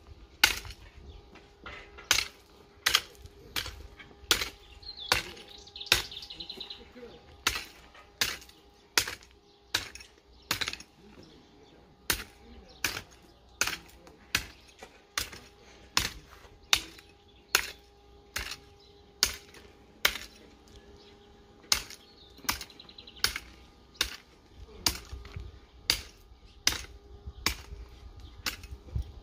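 Hand hoe chopping into dry garden soil, a sharp strike about once a second in a steady rhythm, with a couple of brief pauses.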